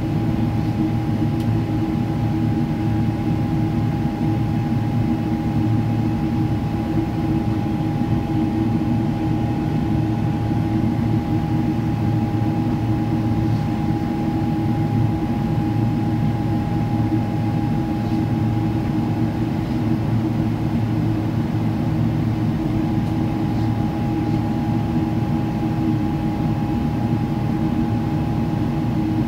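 Cabin noise of a Boeing 777-300ER climbing after takeoff, heard inside by the window over the wing: its GE90 turbofan engines give a steady low rumble with a steady mid-pitched whine running through it.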